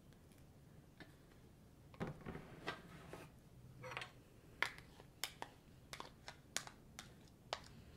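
A metal spoon scraping and tapping inside a plastic measuring cup, scraping thick clear glue out into a plastic bowl: a run of light clicks starting about two seconds in.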